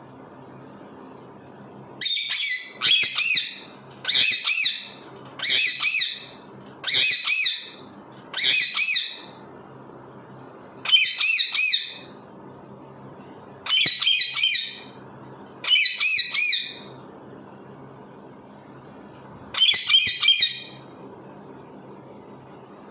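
A parrot calling in repeated shrill, wavering squawks, in about ten bouts of roughly a second each, a second or so apart.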